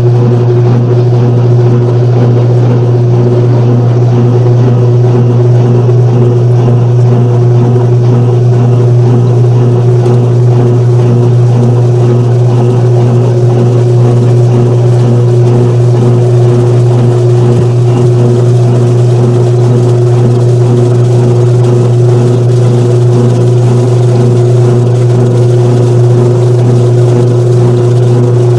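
Washing machine on its spin cycle: a loud, steady hum with a deep drone and a fainter, higher steady tone above it.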